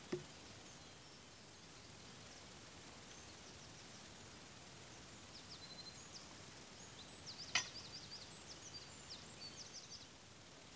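Faint steady outdoor hiss with a single sharp knock about seven and a half seconds in and a lighter one at the very start, from work on oak logs with a long-handled debarking tool. A run of short high chirps sits around the louder knock.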